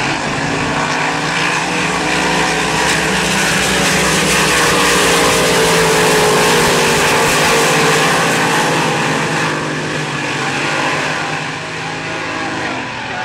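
Supercharged alcohol-fuelled displacement race boat engines running flat out as the boats race past, swelling to their loudest about halfway through and then fading as they pull away.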